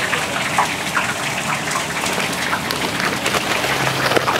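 Hot oil sizzling steadily in a frying pan, a dense crackle of many small pops over a steady hiss.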